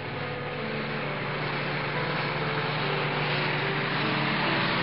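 Car speeding along the road, a steady rush of engine and road noise that grows slowly louder.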